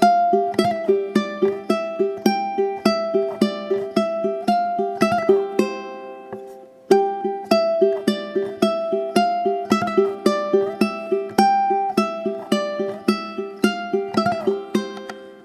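Soft background music on a plucked string instrument, picking a steady run of notes about three a second. It fades out, starts again about seven seconds in, and fades once more near the end.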